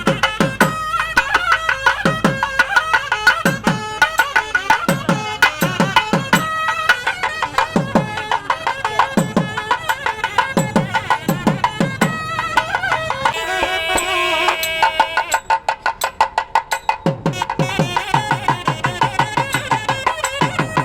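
Traditional Indian music: a wavering melody line over low hand-drum strokes that drop in pitch, with a stretch of fast, even drum strokes about two-thirds of the way through.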